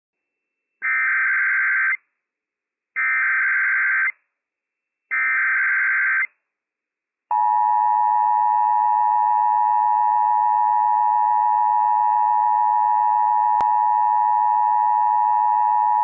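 Emergency Alert System required monthly test tones on NOAA Weather Radio. Three short bursts of the SAME digital header, a buzzy data screech about a second each and two seconds apart, are followed about seven seconds in by the long steady alert tone. A faint click comes near the end.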